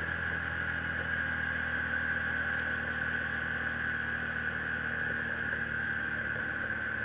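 Yamaha Kodiak ATV's single-cylinder engine running steadily at cruising speed on a gravel road, a constant drone with no change in pitch.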